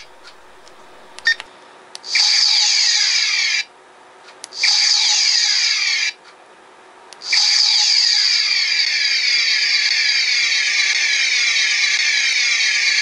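Star Trek phaser firing sound from a GMProps Boomerang phaser electronics board's small speaker, in its continuous-fire setting: a buzzing whine made of rapidly repeating falling sweeps. It fires three times, two bursts of about a second and a half and then one long burst of about six seconds, with a sharp click about a second in.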